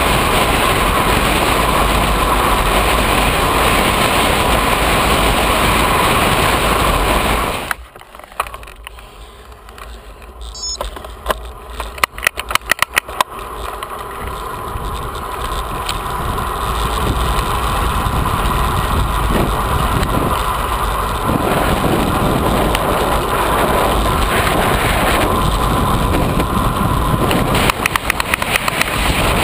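Wind buffeting the microphone of a camera on a road bike moving at speed. About eight seconds in it drops away sharply, a run of sharp clicks follows, and the wind noise then builds back up.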